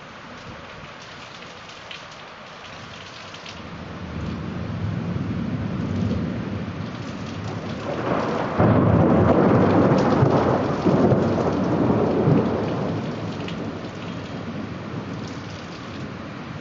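Steady heavy rain with a long roll of thunder. The rumble builds from about four seconds in, is loudest in the middle with a sharp jump in level, and rolls away near the end.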